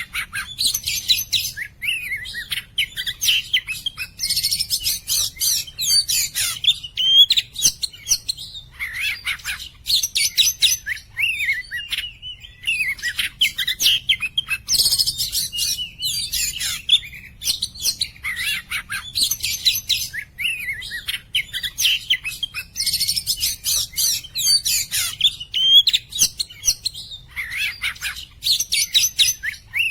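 Oriental magpie-robin (kacer) in full, vigorous song: loud, fast, varied phrases of high whistles, chirps and trills, each lasting one to a few seconds, with short breaks between them.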